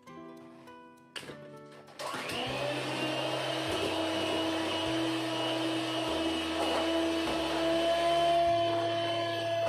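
Light plucked-string music, then about two seconds in an electric mixer switches on and runs steadily at one speed, whipping butter cream with cranberry purée; the music carries on underneath.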